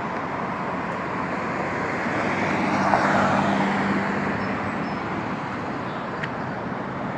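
Road traffic on a multi-lane street: cars driving past with a steady tyre-and-engine hiss, swelling about three seconds in as a vehicle goes by with a steady engine hum.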